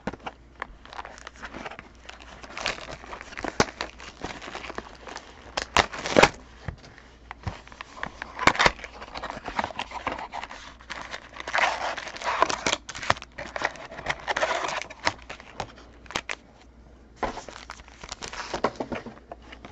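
Packaging crinkling and rustling, with scattered clicks and taps from handling trading cards and boxes; the crinkling comes in longer stretches past the middle and again near the end.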